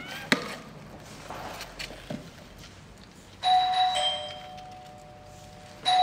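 A two-note ding-dong chime, a higher note and then a lower one, each ringing and fading, about three and a half seconds in. The chime sounds again just before the end.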